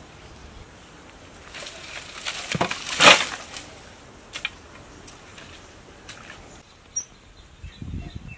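A bundle of dry sticks and palm fronds rustles as it is carried, then is dropped on the ground about three seconds in with a brief loud crackling crash. A few lighter crackles and low knocks follow as the wood and the stove are handled.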